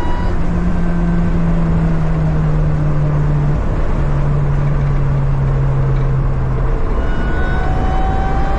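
Track-day car's engine under heavy wind and road noise. The engine note drops and holds low for several seconds as the car eases off, then climbs again about seven seconds in as it accelerates.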